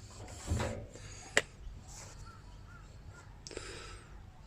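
Harsh bird calls, one about half a second in and another past the three-second mark, with a single sharp click between them that is the loudest sound.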